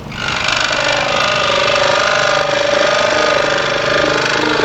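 A 30-inch Pegas scroll saw running and cutting thin walnut with a coarse blade: a steady hum with a fast rattle, which comes in suddenly.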